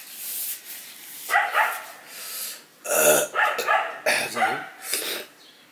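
Dogs barking outside: a string of short barks starting a little over a second in, set off by someone going into the garden to work.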